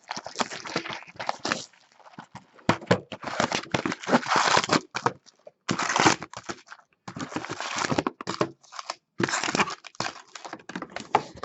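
Plastic wrapping crinkling and tearing as a sealed trading card box is opened by hand, in irregular bursts with short pauses between them.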